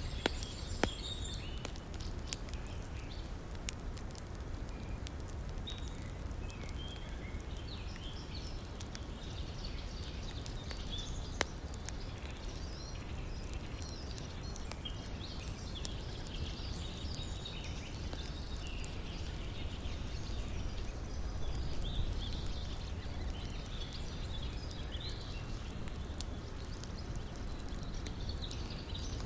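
Campfire crackling with a few sharp pops, over the steady rush of a river, while small birds chirp throughout.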